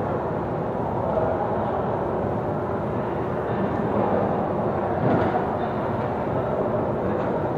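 Steady, fairly loud rushing background noise with no distinct events, swelling slightly about four and five seconds in.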